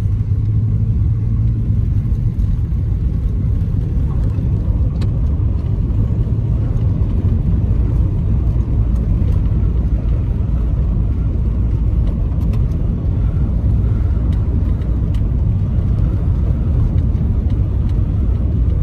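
Steady road and engine noise of a car driving, heard from inside the cabin: an even low rumble.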